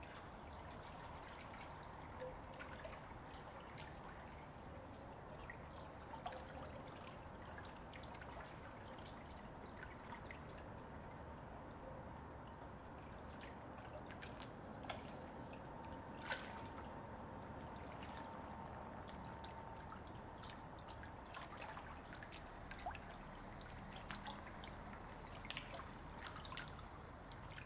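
Faint swimming-pool water: gentle lapping and trickling, with scattered small drips and clicks.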